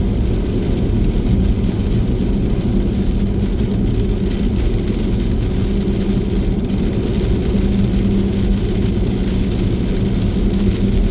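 Jeep Grand Cherokee driving, heard from inside the cabin: a steady low engine and road drone with an even hum.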